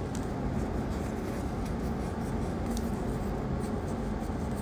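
Faint scratchy rubbing of a paper nail wipe over gel-polished fingernails, with a few soft clicks, over a steady low background hum.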